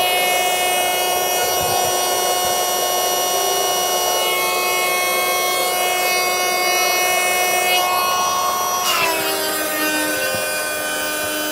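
Electric air pump running steadily while inflating an inflatable car mattress that is already nearly full. Its pitch drops about nine seconds in.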